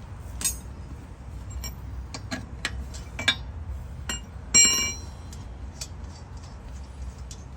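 Metal clicks and clinks of lug nuts being spun off a car wheel with a lug wrench and by hand. The loudest is a single ringing metallic clink about four and a half seconds in, over a steady low rumble.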